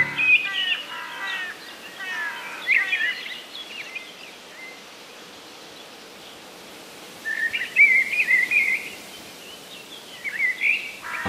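Birdsong: quick chirps and trills in short phrases, one bout in the first few seconds, another about eight seconds in and a brief one near the end, over a faint steady outdoor hiss.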